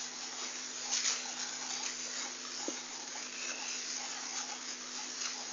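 Steady hiss with a low hum, and a few faint ticks scattered through it; one slightly louder rustle comes about a second in.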